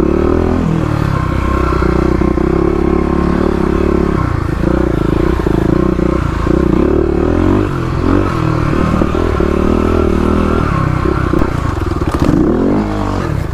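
Big-bore Kawasaki KLX351's single-cylinder four-stroke engine, through its aftermarket header and exhaust, pulling along a trail. The revs rise and fall again and again as the throttle is worked, with brief drops about four, eight and twelve seconds in.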